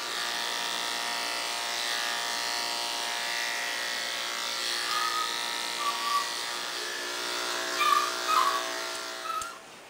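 Corded electric dog clippers running with a steady hum as they shave a Lhasa Apso's coat short. A few short high squeaks come in the second half, and the clippers stop just before the end.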